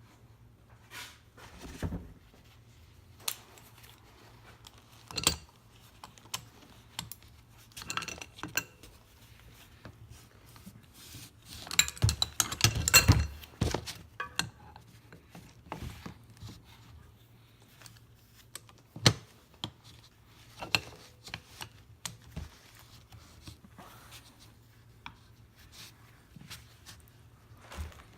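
Metal tools and parts clinking and knocking against a semi-hermetic compressor's casing while its bolts are worked loose, with scattered single clanks and a louder burst of rattling about halfway through.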